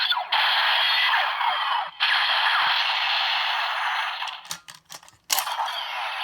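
DX Break Gunner toy playing its electronic sound effects through its small speaker with the Rolling Gravity Shift Car: a harsh, noisy blast effect broken by two brief gaps, fading out about four seconds in. A few sharp clicks follow, then another burst starts near the end.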